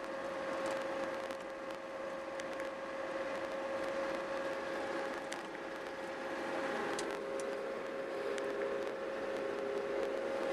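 Diesel snow groomer running steadily under way, heard from inside its cab: an even engine drone with a constant whine, and a few small ticks and rattles.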